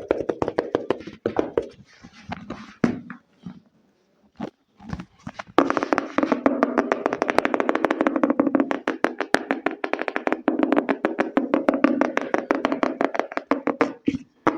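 Fingertips tapping fast on an object, irregular at first with a brief pause about four seconds in, then a dense, very rapid run of taps from about five and a half seconds on.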